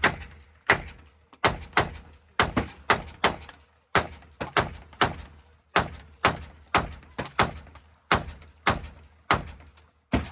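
Gunfire from a firearm at a shooting range: a steady string of shots, about two to three a second, some in quick pairs, each ringing off briefly.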